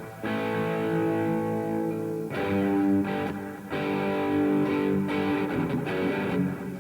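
Electric guitar played through a Revv G3 preamp/distortion pedal: ringing chords that are struck and left to sustain, with a change of chord every second or two.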